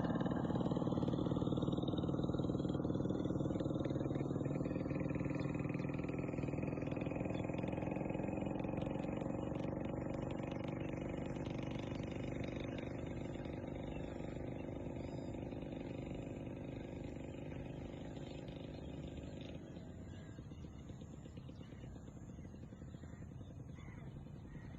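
A motor vehicle's engine running, slowly dropping in pitch and fading steadily as it moves away.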